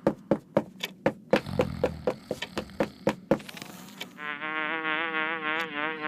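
A fast, even series of sharp taps, about four a second, stops a little over three seconds in. After a short rising sweep, a cartoon fly's buzz starts and runs on, wavering slightly in pitch.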